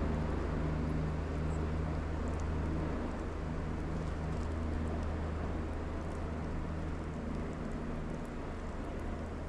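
Steady low mechanical drone over a wash of noise, with a few faint high ticks about one and a half and two and a half seconds in.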